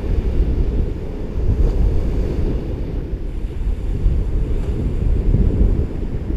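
Ocean surf washing on a beach, heard under steady wind buffeting the microphone, which gives a loud, constant low rumble.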